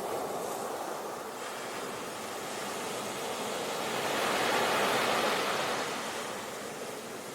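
Sea surf: a steady rush of waves washing in that swells to its loudest about halfway through and then eases off.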